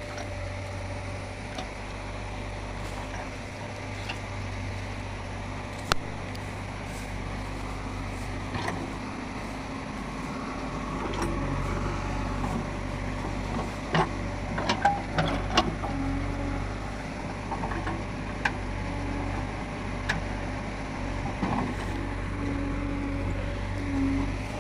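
JCB 3DX Xpert backhoe loader's diesel engine running steadily as it digs a foundation trench, with a low rumble and a few scattered knocks and clanks.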